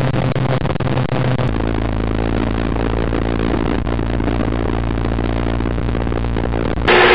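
A motor vehicle's engine running steadily at an even pitch. About a second and a half in, the low hum deepens, and near the end the sound turns abruptly louder and brighter.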